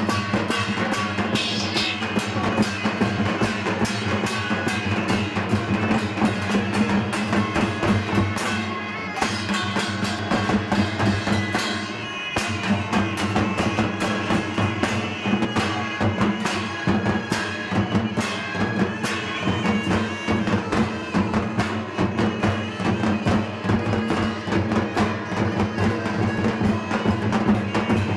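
Loud music with a steady, driving drum beat and a heavy bass line, dipping briefly twice about nine and twelve seconds in.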